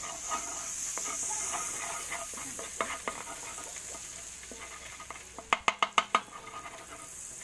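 Butter sizzling as it melts in an aluminium wok while a wooden spatula stirs and scrapes it, with scattered light clicks. A little past two-thirds of the way through comes a quick run of about six sharp clacks of the spatula against the pan.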